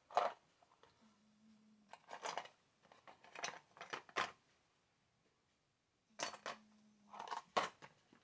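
Small metal chainsaw parts clinking and rattling in a plastic parts tub as a hand rummages through it, in several short bursts with pauses between.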